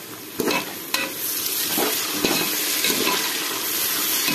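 Mint leaves and green chillies frying with onions in plenty of hot oil, stirred with a perforated steel skimmer against the pot. A couple of knocks of the skimmer near the start, then steady sizzling from about a second in.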